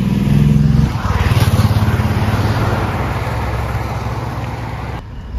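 Motor vehicles passing close on a road: an engine running loudly at first, then a louder pulsing engine rumble as traffic goes by, fading slowly. It stops abruptly about five seconds in.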